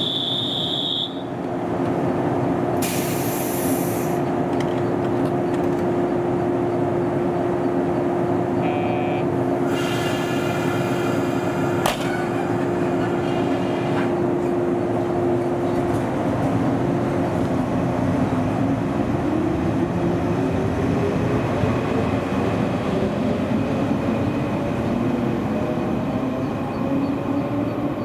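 JNR 115-series electric train standing at a platform with a steady hum, a short high tone at the start, brief hisses and a sharp clunk as its doors close, then a steadily rising whine from about eighteen seconds in as it pulls away.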